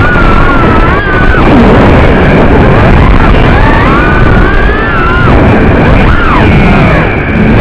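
FPV quadcopter's brushless motors and propellers, heard through the onboard camera's microphone: a loud whine that rises and falls in pitch with the throttle over heavy rushing wind and propeller noise.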